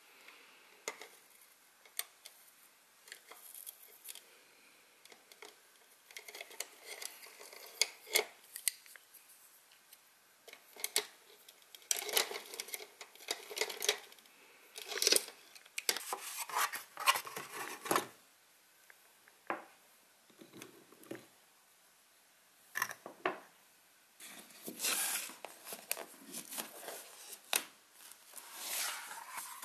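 Paintbrushes rattling and clicking against each other and their plastic cup as they are picked through by hand, in irregular clusters of sharp clicks and clatters with short quiet gaps. Near the end, a hardcover sketchbook is handled on a wooden table, rubbing and rustling.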